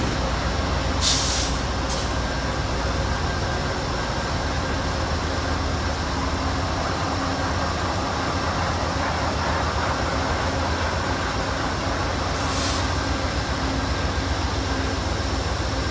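Amtrak diesel locomotives idling at the platform: a steady low rumble with a constant hum. Short hisses of air come about a second in, again a second later, and once more near the end.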